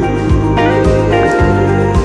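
Instrumental background music with sustained melodic notes over a steady beat.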